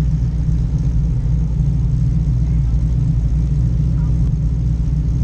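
Car engine idling with a steady, deep low-pitched rumble, heard close up from the hood of the car.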